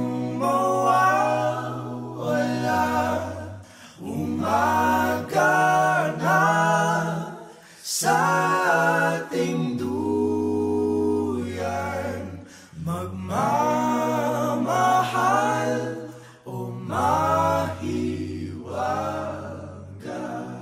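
A cappella group vocals singing in layered harmony, phrases of a few seconds each over held low notes, with no instruments.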